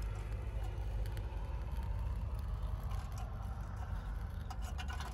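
Portable gas stove burning under a wire grill basket of sausages and vegetables: a steady low roar. A few light metal clicks from the grill basket come near the end.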